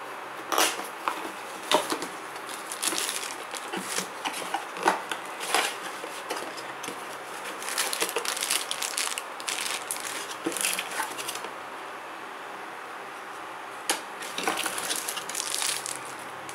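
Cardboard packaging being opened and items in clear plastic wrap handled: irregular crinkling and rustling with sharp clicks of card. A short lull comes about three-quarters through, then more crinkling.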